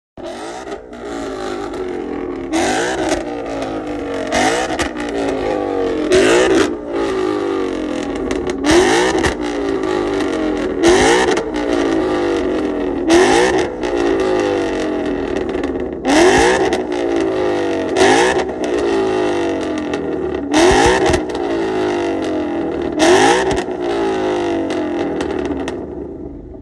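A Ford Mustang's engine revved again and again, with a sharp blip every two to three seconds and the engine note falling back in between. The sound fades out near the end.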